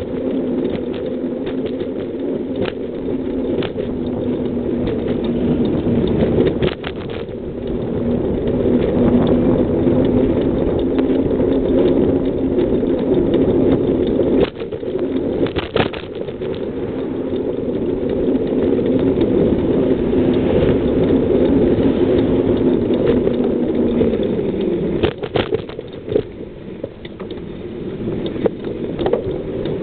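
Riding noise from a bicycle rolling along a paved street: a steady hum that falls in pitch and fades near the end, broken by a few sharp clicks or knocks.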